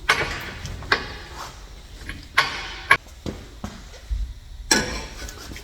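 Metal clanking and scraping of exhaust pipes being worked into place under a car: about five sharp knocks and scrapes, a second or so apart.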